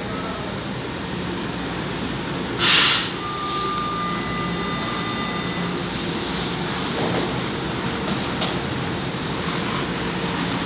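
A São Paulo Metro Line 1 train stands at the platform, its equipment humming steadily. A short, sharp hiss of air comes about a quarter of the way in, followed by a few seconds of steady high tones.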